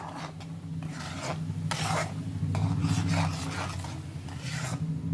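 Metal ladle stirring and scraping thick gravy against the bottom of an aluminium kadai, a rasping stroke every half second or so. A low steady hum runs underneath.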